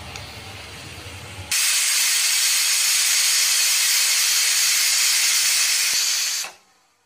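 Stovetop pressure cooker whistling: about a second and a half in, a sudden loud hiss of steam bursts out past the weight valve, runs for about five seconds, then cuts off suddenly. Before it there is a low rumble. The whistle is the sign that the cooker has come up to pressure, and it is counted as a cooking measure.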